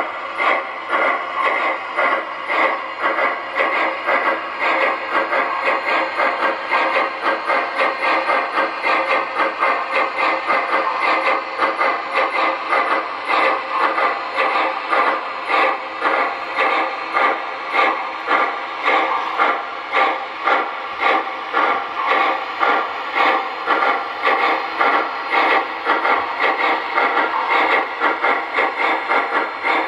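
Sound-equipped model steam locomotive lettered Virginian 700, playing a steady chuffing exhaust with steam hiss through its onboard speaker as it runs, at about two chuffs a second.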